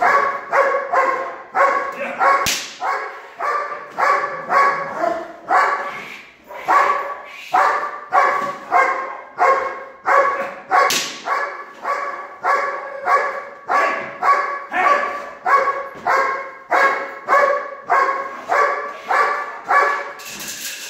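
Doberman barking steadily and rhythmically, about two barks a second, in guard barking at a helper during protection training. Two sharp cracks stand out, one a few seconds in and one near the middle.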